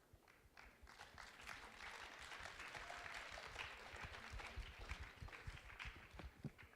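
Audience applauding faintly, building up and then dying away near the end.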